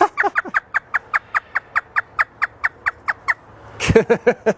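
African grey parrot imitating a hysterical laugh: a quick run of short high 'ha' notes, about four or five a second, each falling in pitch, then a few lower laughing notes near the end.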